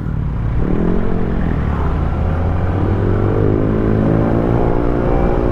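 Kawasaki ZX-4RR's 399 cc inline-four engine revving up under acceleration, with the pitch dropping once about a second in as it shifts up on the quick shifter, then climbing steadily again.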